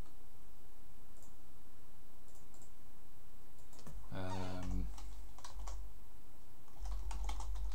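Typing on a computer keyboard: a quick run of keystrokes in the last second or so, after a few faint clicks. A brief hum from a voice comes about four seconds in.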